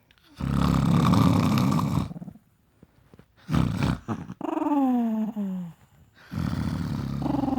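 A Chihuahua growling angrily in three long, rough bouts, the later two sliding down into a falling, whiny grumble. It is the dog's angry reaction to a person's fake snoring.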